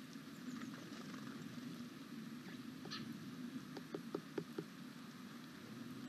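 Eurasian red squirrel (black form) cracking and chewing seeds: a quick run of about half a dozen sharp clicks a little past the middle, over a steady low background rumble.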